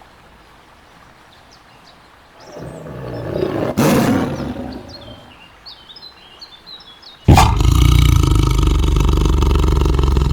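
Tiger roaring: a first roar swells up a couple of seconds in and fades, a few faint bird chirps follow, then a second, louder roar starts abruptly about three seconds before the end.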